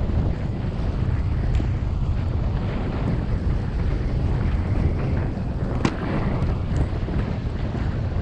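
Wind buffeting a GoPro's microphone while skiing downhill, a steady low rumble, with the hiss of skis sliding on snow underneath. One sharp click about six seconds in.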